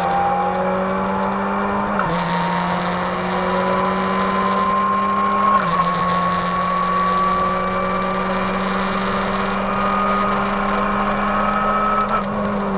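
Race car engine heard from inside its stripped, roll-caged cabin under acceleration: the revs climb slowly, drop sharply with an upshift about two seconds in and another a little over five seconds in, then climb again. A brief click and a change in the engine note come near the end.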